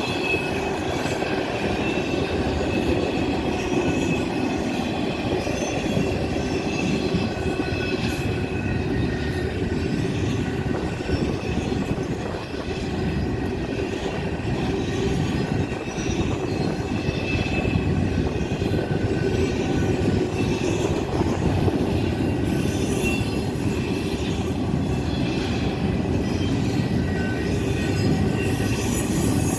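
Long freight train of double-stack container and piggyback cars rolling steadily past, a continuous rumble of wheels on rail with clicks over the joints and thin, wavering wheel squeal coming and going.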